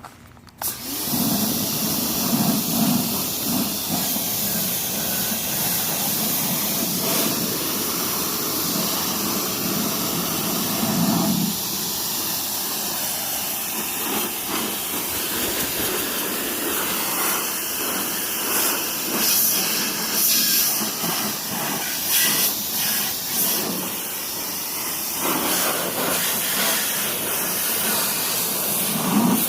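Pressure washer jet spraying a small barbecue grill: a steady hissing rush that starts abruptly under a second in, its tone varying as the spray plays over the surface.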